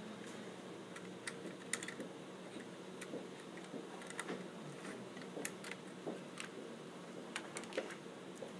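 Scattered faint clicks and light taps of hands handling a jigsaw and adjusting the metal bar wired to its blade; the saw's motor is not running.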